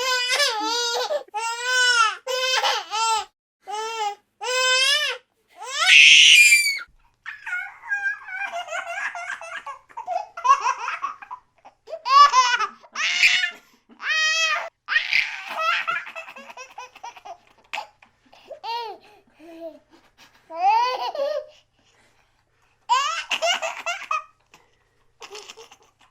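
Baby laughing in bursts of high-pitched giggles and belly laughs, with short gaps and squeals between fits, including a brief pause near the end.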